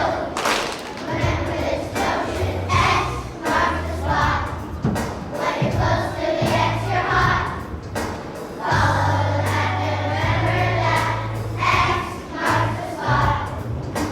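A choir of second-grade children singing a song together over instrumental accompaniment with a moving bass line.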